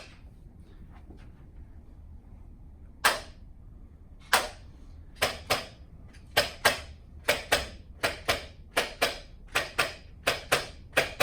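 A series of sharp clicks, each ringing out briefly. They come sparsely at first, then more and more often, mostly in quick pairs at about two to three a second.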